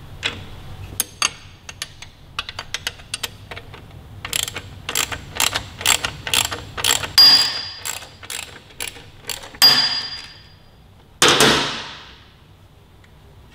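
Ratchet wrench clicking in runs as the nuts are worked off the rear shock's mounting bolts, with two sharp metallic clinks that ring on briefly. Near the end comes a loud scrape about a second long.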